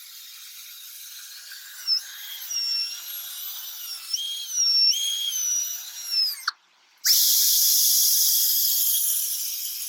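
Drill spinning a foam polishing pad over a headlight with restorer cream, its motor whine shifting up and down in pitch as the speed changes. About six and a half seconds in it winds down and stops for a moment, then starts again and runs steadily.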